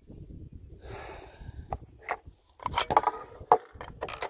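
Handling noises from a bolt-action rifle and its magazine being worked on a wooden shooting bench: a scuffle, then several sharp clicks and clacks, the loudest about three and a half seconds in, over a low rumble.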